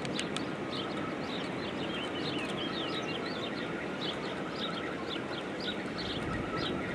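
Small birds chirping repeatedly in short, quick calls over a steady background rush.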